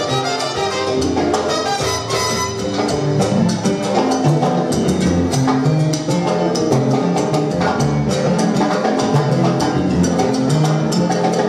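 Salsa band playing an up-tempo number, with dense Latin percussion and horns over a moving bass line.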